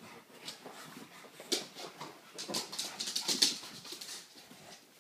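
Shar-pei puppies play-fighting: irregular bursts of puppy vocal noises and scuffling, loudest a little past three seconds in.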